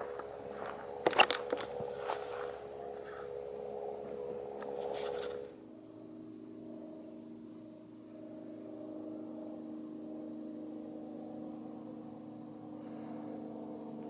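A steady hum with a quick cluster of sharp clicks and rustles about a second in. About five and a half seconds in, the sound cuts abruptly to a sustained, gong-like drone of several steady tones.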